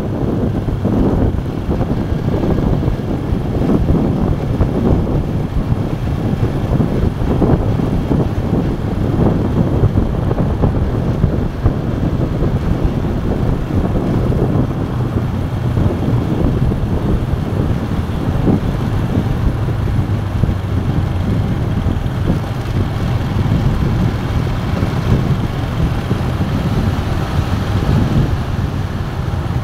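Wind buffeting the phone's microphone on a moving motorcycle, with the motorcycle's engine running steadily underneath.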